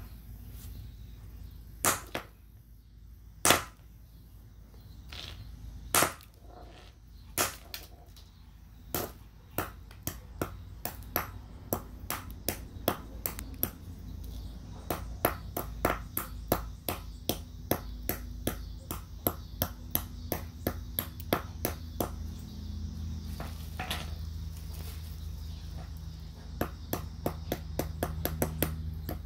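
Steel claw hammer striking a small iron-bearing rock on concrete, breaking it into fragments. A few heavy blows come a second or two apart, then from about ten seconds in a quick run of lighter sharp taps, about two or three a second.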